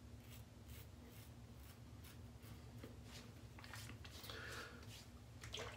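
Rex Supply Co Ambassador double-edge safety razor with a Gillette Silver Blue blade, faintly scraping through stubble in short repeated strokes. About four seconds in, fingertips rub over the freshly shaved skin.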